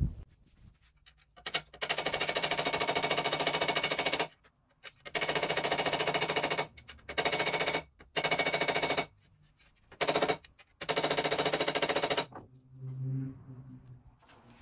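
Small ball-peen hammer tapping rapidly on metal, in six runs of quick, even strikes with short pauses between, the brass rod pins of a knife handle being peened. Softer handling sounds near the end.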